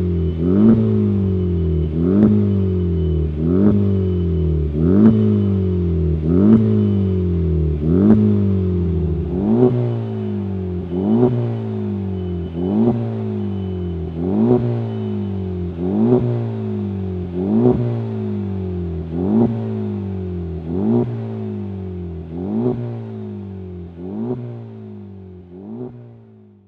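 Honda Civic Type R FK2's 2.0-litre turbocharged four-cylinder through a Cobra Sport 3-inch stainless steel resonated cat-back exhaust, revved repeatedly from idle: a sharp blip about every second and a half, each one rising quickly and falling back. The sound fades out over the last few seconds.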